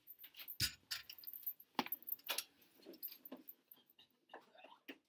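Irregular clicks, rattles and a few knocks of small objects being handled, with one duller thump about half a second in.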